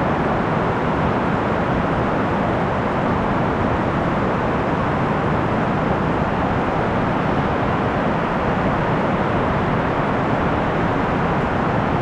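Heavy rain falling in a steady, even hiss.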